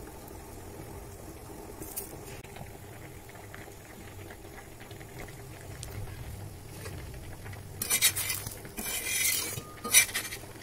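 Metal kitchen utensils clattering and clinking against each other several times in quick succession near the end, over a low steady hum.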